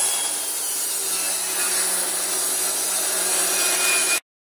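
Table saw cutting a groove along a pine 2x12 board, a steady loud sawing noise that cuts off suddenly about four seconds in.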